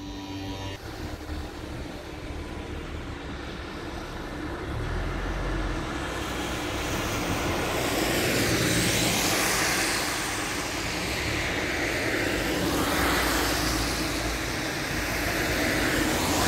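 Road traffic on a rain-wet street: a low engine rumble, then tyres hissing on the wet asphalt as vehicles pass, the rushing noise swelling and fading several times in the second half.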